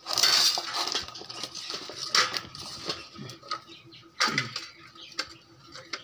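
Steel plates and an aluminium pot clinking as handfuls of chopped vegetables are scooped out and dropped onto the plates. There is a loud clatter at the start and sharper knocks about two and four seconds in.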